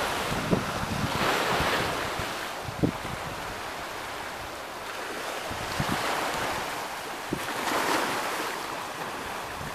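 Waves washing on the bay shore, the rush of water swelling and fading every few seconds, with wind buffeting the microphone in a few short low thumps.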